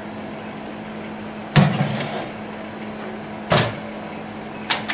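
Microwave oven door and dial controls being worked as a bowl of butter goes in to melt: a loud clunk about a second and a half in, then two sharper clicks, over a steady low hum.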